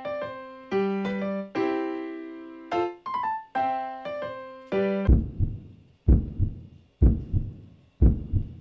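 Light piano background music for about five seconds, then it breaks off and a heartbeat sound effect takes over: four deep, low thumps about a second apart, building suspense.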